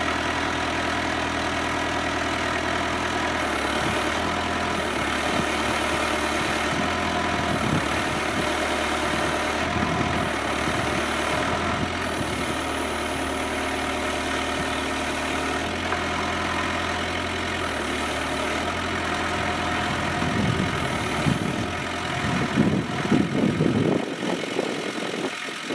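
Kubota B7800 compact tractor's diesel engine running steadily. Near the end the steady note gives way to an uneven rumbling.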